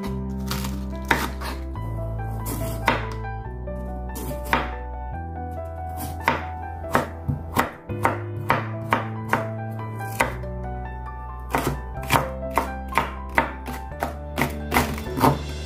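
Chef's knife cutting vegetables on a bamboo cutting board: shredding cabbage, then julienning carrot and slicing green onion, each cut a sharp knock of the blade on the wood. The strokes are sparse at first and come faster, about two to three a second, in the second half, over background music.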